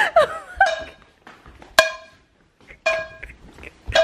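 Women laughing in short, high-pitched bursts, with a brief lull about two seconds in.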